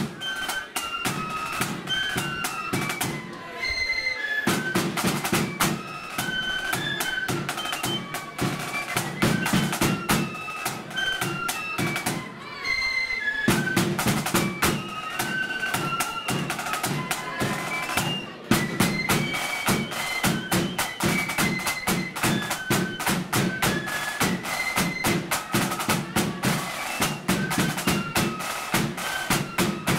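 Blood-and-thunder flute band playing a march: a flute melody over rapid snare drumming and a bass drum beat, with brief breaks in the playing a few times.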